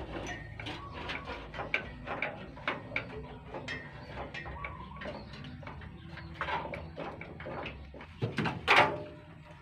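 A string of clicks, taps and rustles from a wiring harness being handled and fitted, over a low steady hum, with a louder clatter about eight and a half seconds in.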